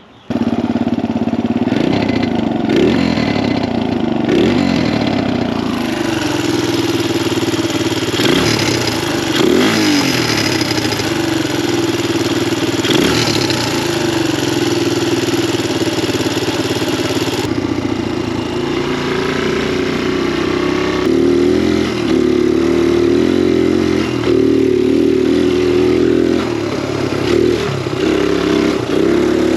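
Dirt bike engine running under way, revving up repeatedly as the rider accelerates through the gears, with a steady rushing hiss under it.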